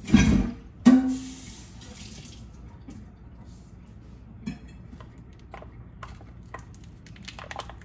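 Kitchen handling noises as a stubborn sausage package is forced open: a thump, then a sharp metallic clank that rings briefly about a second in, followed by a short hiss and light clicks and rustles.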